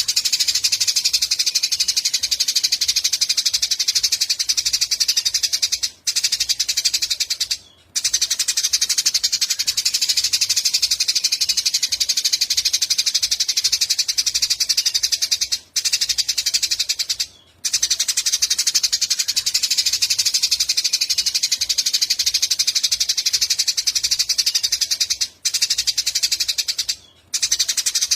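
A small songbird's rapid, high-pitched chirping, delivered in long unbroken runs of very fast notes. The runs stop for a moment twice about every ten seconds, a pattern typical of a looped masteran training recording.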